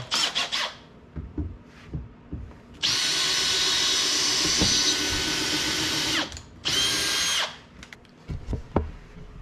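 Makita cordless drill running in bursts as it drills out small bolt holes: a short spin at the start, then one long steady run of about three seconds, and a shorter run a moment later.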